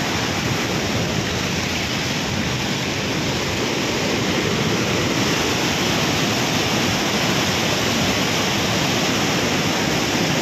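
Muddy floodwater rushing past in a fast, churning torrent: a loud, steady rush of water.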